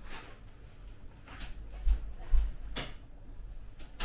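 Window blinds being drawn shut: a few brief swishes about a second and a half apart, with a couple of dull thumps about two seconds in.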